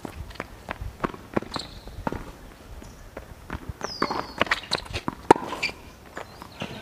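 Tennis rally on an outdoor hard court: quick footsteps and shoe scuffs with sharp knocks of the ball off racket strings and court. A short squeak comes about four seconds in, and the loudest knock a little after five seconds.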